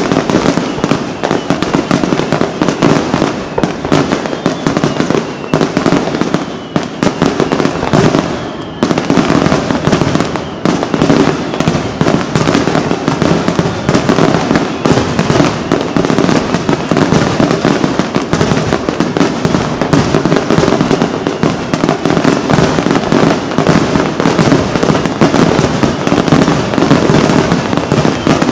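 Aerial firework shells bursting in a rapid, continuous barrage, the bangs overlapping with no pause between them. There is a short dip in the noise about eight seconds in.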